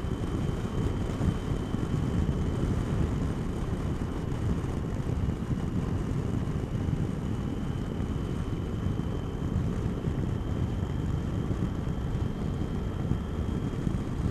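Triumph Tiger motorcycle riding at a steady pace, heard through a helmet microphone: a steady low rumble of engine, road and wind noise, with a faint steady whine above it.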